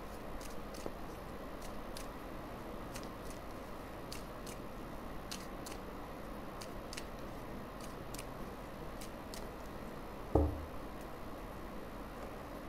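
A deck of tarot cards being shuffled by hand, with soft, irregular card flicks and slides over a faint steady hiss. One dull thump about ten seconds in.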